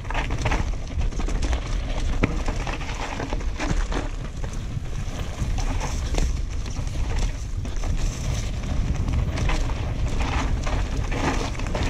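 Wind buffeting an action camera's microphone on a fast downhill mountain-bike descent, with tyres crunching over dry leaves and dirt and scattered clicks and knocks from the bike.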